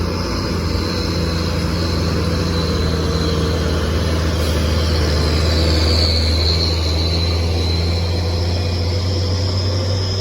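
Heavy truck's diesel engine running with a deep, steady drone. A faint high whine rises and falls around the middle.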